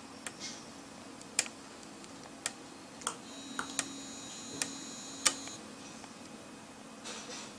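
Sharp plastic clicks of single-button call pagers and the receiver's keys being pressed, about eight, spaced irregularly. A little over three and a half seconds in, a high steady electronic tone sounds for about two seconds, the APE6900 wrist receiver signalling an incoming call.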